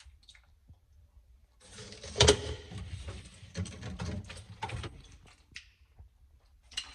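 Rustling, clattering and knocking of objects being handled and moved, loudest in a sharp knock about two seconds in, with a scatter of smaller clicks after it.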